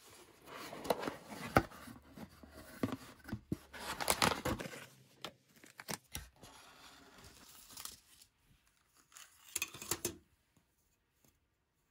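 Unpacking noises: a cardboard box opened and a plastic bag rustling and tearing in irregular bursts, then a few light clicks as the bare circuit boards are laid down on the table.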